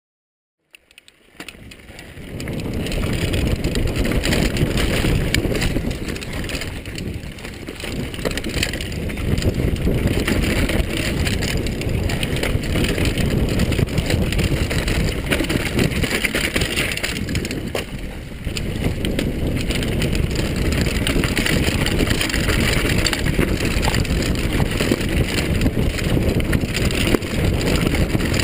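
Mountain bike descending a dirt forest trail: wind buffeting the microphone over the rattle of the bike and its tyres on the ground, with many small knocks from bumps. It fades in after about a second of silence.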